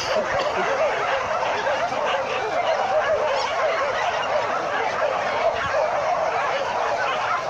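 A large pack of dogs barking and yelping together, many voices overlapping into a continuous chorus with no pause.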